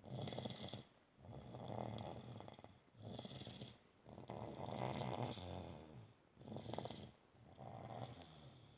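Snoring: a run of snores, one every second or so, each breath a separate burst with short quiet gaps between.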